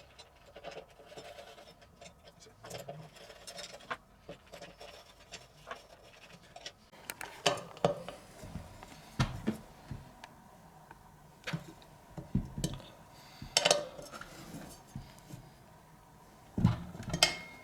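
Scattered metallic clicks and clinks of hand tools and bolts as motorcycle brake rotor bolts are threaded in and tightened, with a few sharper knocks spread irregularly through.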